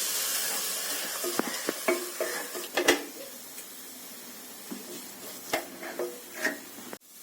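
Ground tomato paste hitting hot oil and fried masala in a pan, sizzling loudly at first and dying down after about three seconds. A spoon stirs the mixture, knocking against the pan several times.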